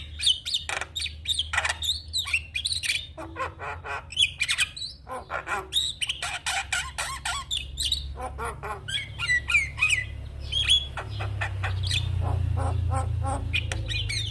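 Javan myna singing a fast, chattering run of harsh squawks, clicks and short rising and falling whistles, with hardly a pause. A low steady hum lies underneath and grows louder near the end.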